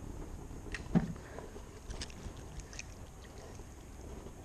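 Faint handling noises in a small boat: a single dull knock about a second in and a few light scattered ticks over low steady background noise.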